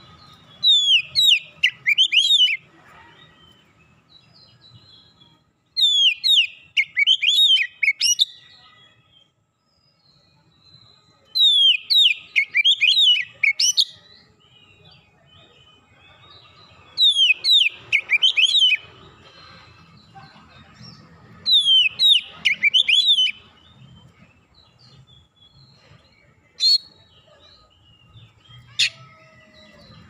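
Oriental magpie-robin singing: five phrases about five seconds apart, each a quick run of sweeping whistles falling in pitch, then two short single notes near the end.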